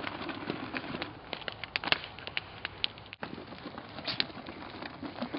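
Irregular crackling, with scattered sharp snaps and clicks over a steady hiss.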